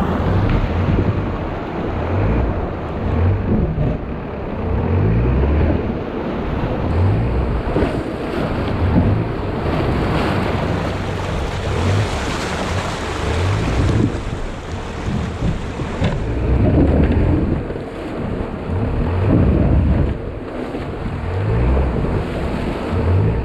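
Water rushing and splashing against the front of a Toyota Hilux Surf as it drives up a flowing stream bed, its engine revving up and down over and over beneath the water noise. Wind buffets the microphone.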